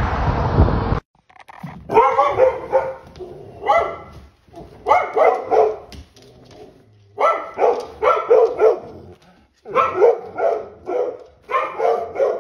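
A dog barking in about six short bouts of several barks each, with brief pauses between them, after a second of steady noise at the start.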